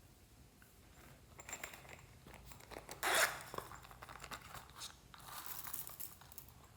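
Glossy slime being squished and mixed by hand, making clusters of small crackly clicks and pops. The loudest burst comes about three seconds in, and another run of crackling comes near the end.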